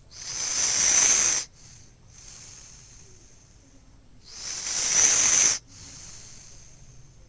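Snoring: two loud, hissing breaths about four seconds apart, each building for about a second and then cutting off abruptly, with quieter breaths in between.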